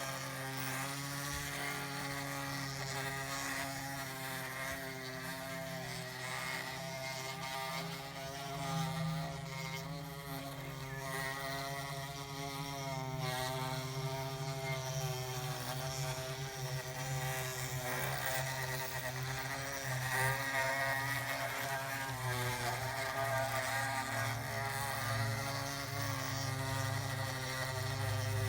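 Electric motors and hydraulic pumps of radio-controlled model construction machines running, a steady whine whose pitch wavers up and down.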